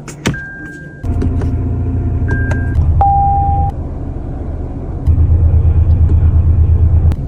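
Toyota Land Cruiser Prado engine rumble that comes in abruptly about a second in and runs on. It gets louder and pulses evenly for the last couple of seconds. Short, steady electronic beeps from the vehicle sound near the start and around two to three seconds in.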